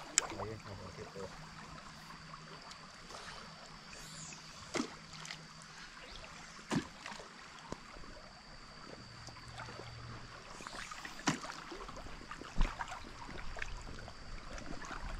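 Steady rush of river water running past, with a few short knocks and clicks scattered through it.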